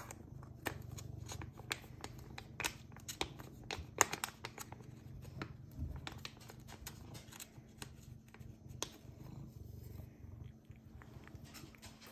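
A cat licking a creamy treat from a plastic squeeze pouch held in the hand: irregular, quick wet clicks from its tongue, with soft crinkling as the pouch is squeezed.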